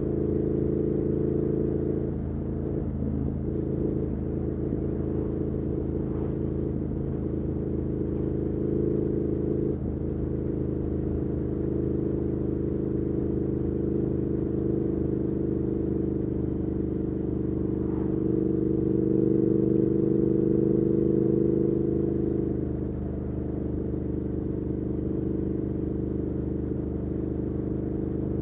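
Triumph Speed Twin 1200's parallel-twin engine through a Weslake Shorty Pro exhaust, running steadily at cruise. The throttle eases off briefly about 2 and 10 seconds in, and the engine pulls louder for a few seconds around 18 to 22 seconds before settling back.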